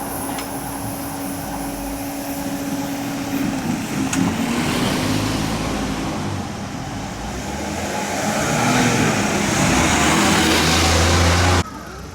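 A road vehicle passing close by, its noise building to its loudest near the end and then cutting off abruptly.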